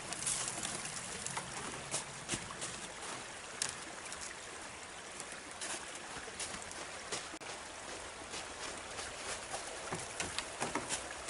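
Running water of a small stream, a steady rushing hiss, with scattered short crackles and clicks over it.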